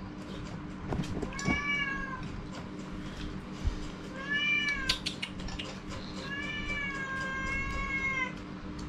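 A cat meowing three times: two short calls that rise and fall, about a second and four seconds in, then one long drawn-out meow near the end.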